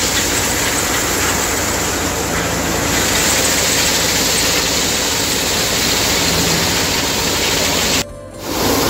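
Engine-driven wheat threshing machine running steadily while wheat stalks are fed into it, a dense loud machine noise with a low engine hum underneath. The sound drops out briefly near the end.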